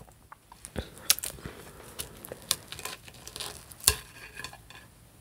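Scattered light clicks and taps of a fork or other cutlery against a plate while eating, the sharpest about a second in and again near four seconds in.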